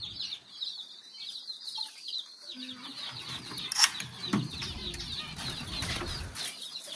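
Many small aviary birds chirping in a quick, constant chatter. A sharp knock comes just before four seconds in, and a low fluttering rustle of wings runs from about four seconds to near the end.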